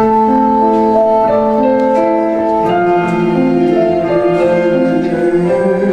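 Piano or keyboard playing slow, sustained chords that come in suddenly at the start, with the notes shifting every second or so.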